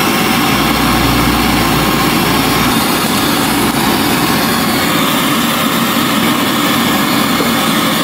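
Brazing torch flame burning with a loud, steady rushing hiss while a service valve is brazed onto the refrigerator compressor's tubing, with a deeper rumble in the first few seconds.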